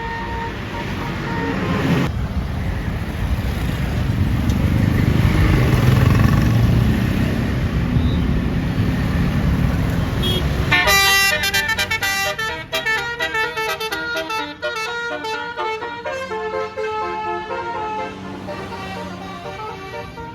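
A tour bus passes with loud engine noise, then its Basuri multi-tone 'telolet' horn starts suddenly about halfway through and plays a fast tune of changing notes.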